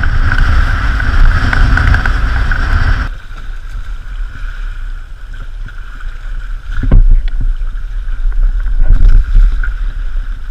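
Wind buffeting the microphone and water rushing along the hulls of a trimaran sailing upwind. It is loud at first, then drops to a quieter rush about three seconds in, with two louder gusts of low rumble later on.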